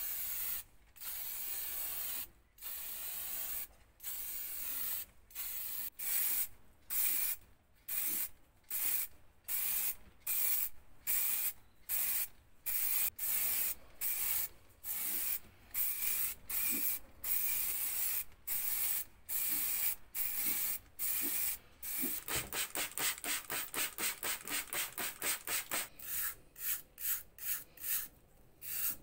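Aerosol spray-paint can sprayed in short bursts, about one a second, each a hiss under a second long. About 22 seconds in it gives way to quick back-and-forth scrubbing of a stiff brush on wet, rusty perforated metal burner tubes, several strokes a second.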